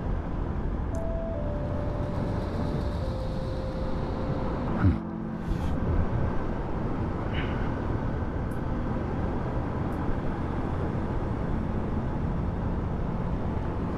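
Motorcycle riding along a highway: steady engine and road noise, with a brief louder sound about five seconds in.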